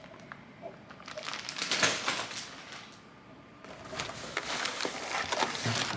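Plastic packaging crinkling and rustling as a part is unwrapped by hand, in two bouts with a short lull between them.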